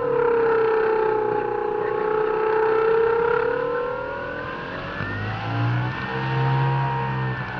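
Electric motor and propeller of an E-flite Mystique 2.9M RES glider whining under power, heard from a camera on the airframe. The pitch sags slightly and then rises again about five seconds in, over the rush of wind past the plane.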